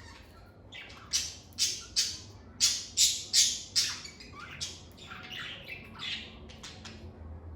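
Lovebird calls: a quick run of shrill, harsh chirps about two to three a second, then a few softer calls trailing off.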